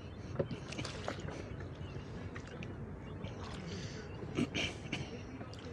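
Mark line being hauled aboard a small boat: scattered knocks and rubbing of rope and gear against the hull, with a louder clatter about four and a half seconds in.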